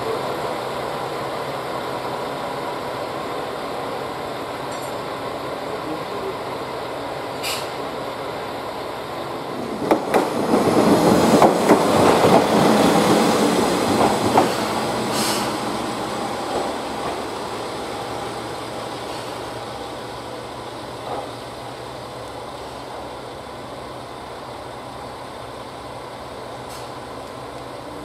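Diesel railcars moving slowly during shunting: a steady engine and rail noise that swells loudly as a railcar passes close by, from about ten to fifteen seconds in, then slowly fades. A couple of sharp clicks come from the wheels or couplers.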